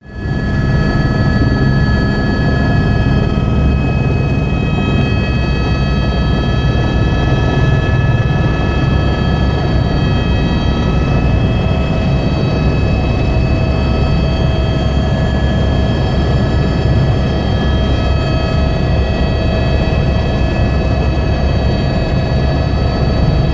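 Tour helicopter's turbine engine and rotor running, heard from inside the cabin: a steady loud rumble under a high whine of several steady tones.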